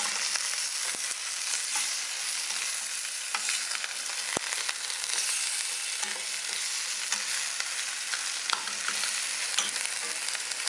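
Beef fillet chunks and black tiger prawns frying in olive oil in a metal frying pan, a steady sizzle as they are seared hot. A wooden spoon stirs them, with scattered light clicks against the pan.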